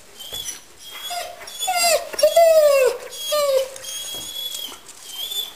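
German Shepherd whining in excitement before a walk: thin, high, steady whines, with a run of louder falling cries in the middle.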